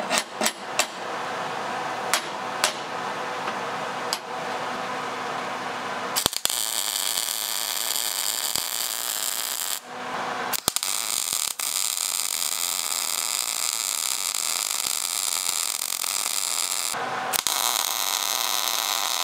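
MIG welder arc crackling steadily in long runs as a steel step is welded to a steel boat's bulwarks, stopping briefly twice. A few sharp clicks come first.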